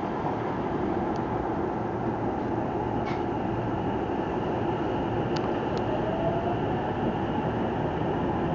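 Hankyu 9000 series electric train running steadily up a gentle grade in wind and rain, its wheels gripping without slipping. A faint rising tone comes in briefly about six seconds in.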